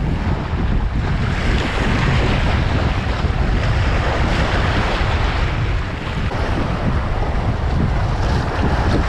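Strong wind buffeting the microphone in a steady, rumbling rush, with waves washing on the shore beneath it.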